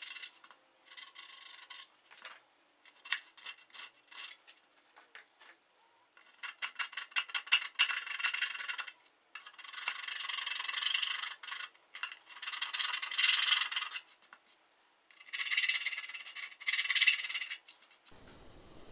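Small hand file rasping back and forth on the wooden edge of a guitar body's F-hole, smoothing the cut. A few short strokes come first, then longer runs of quick strokes with brief pauses.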